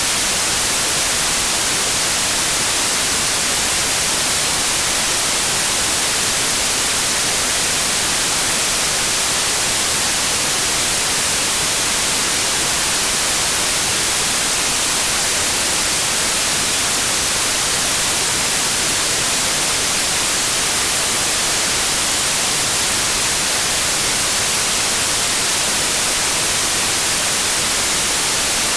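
Steady white noise: an even, unchanging hiss across the whole range, brightest in the highs.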